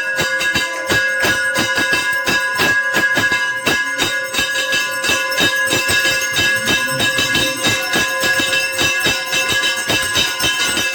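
Hindu temple bells rung fast and without pause for the aarti: a dense run of quick, even strikes over a steady metallic ring.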